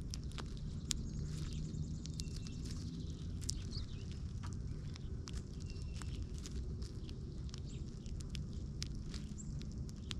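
Irregular small clicks and ticks of feeding at a bird feeder, seed being pecked and cracked, with a few brief faint bird chirps, over a steady low rumble.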